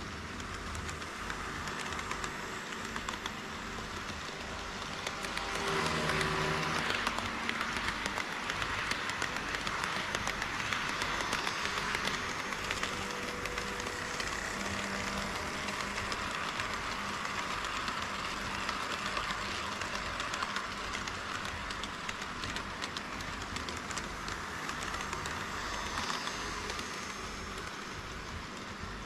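HO scale model trains running on KATO Unitrack sectional track, a steady mechanical whirr with many fine wheel clicks over the rail joints. It grows louder from about five seconds in, as trains pass close by.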